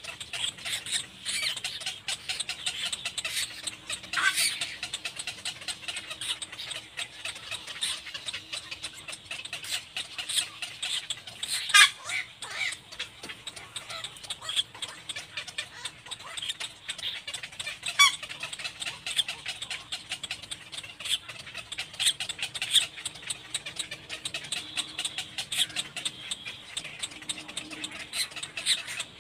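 Little black cormorants calling: a steady run of short squeaky calls, with a few louder calls that fall in pitch, the loudest about twelve seconds in.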